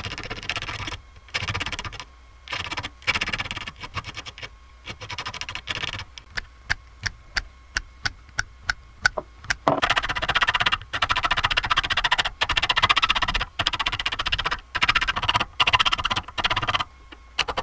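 Small metal file scraping across the edge of a brass disc, taking off the burr a hole saw left. It goes in short groups of strokes at first, then separate sharp strokes about three a second, then fast continuous filing from about ten seconds in.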